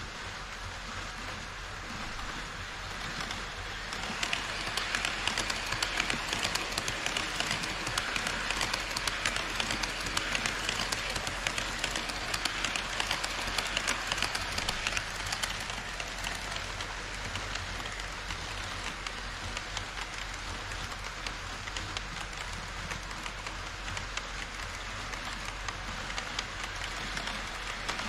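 HO-scale model trains, an E5 series Shinkansen and a container freight train, running on KATO Unitrack: a dense, rapid rattle of small metal wheels over the track, getting louder about four seconds in.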